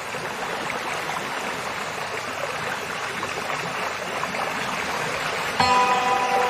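A river or stream flowing with a steady rush of water. Near the end a soft held chord of calming background music comes in over it.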